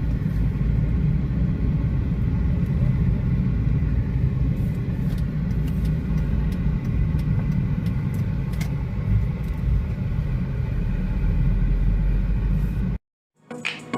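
Steady, loud, low vehicle rumble with faint steady tones and a few small clicks. It cuts off abruptly about a second before the end, and music begins.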